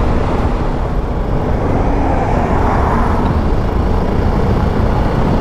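Steady rush of wind and road noise on a riding BMW G310 GS motorcycle, with the faint hum of its single-cylinder engine underneath.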